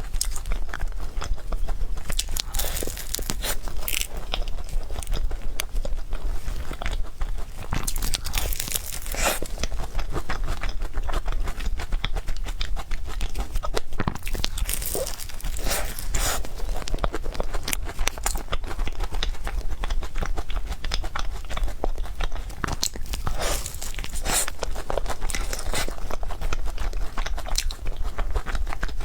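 Close-miked eating sounds of someone eating cake: chewing and mouth clicks, with louder clusters every few seconds over a steady low hum.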